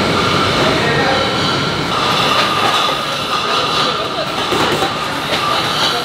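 Automated rum bottling line running: a loud, steady machine din with a few faint steady tones in it.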